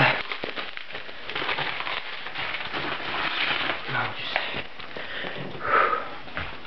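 Stiff plastic packaging being cut and torn open by hand: a rustling, crackling noise with many small clicks and a few louder rips.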